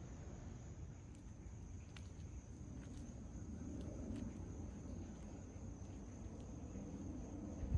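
Faint, steady low rumble of a distant jet airliner overhead, with insects trilling steadily in the background.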